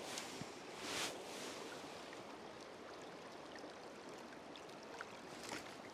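Steady rush of a trout stream's flowing water, with a brief louder swell about a second in and a few faint ticks near the end.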